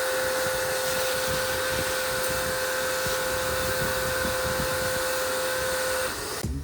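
Wholesun WS 3000 electric pressure washer running and spraying, a steady hiss of water under a constant motor whine, cutting off about six seconds in.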